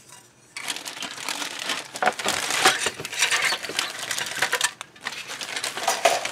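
Thin clear plastic bag crinkling and rustling as it is handled, starting about half a second in, with light clicks of the plastic parts inside.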